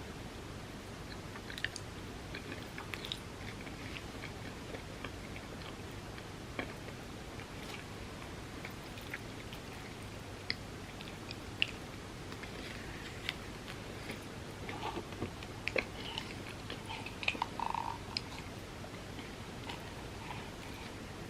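Close-miked chewing of soft-baked cookie cups layered with chocolate wafers: irregular small mouth clicks and light crunches, busiest a little past the middle, over a steady faint hiss.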